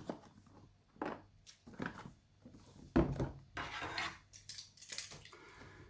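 Packaging being handled as a box is opened: a string of short rustles, taps and light knocks, the loudest about three seconds in.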